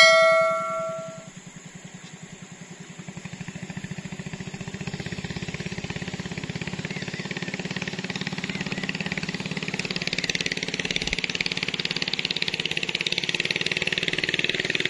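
A bell-like chime rings for about a second. Then a small boat engine runs steadily with a fast pulsing beat, growing louder about halfway through.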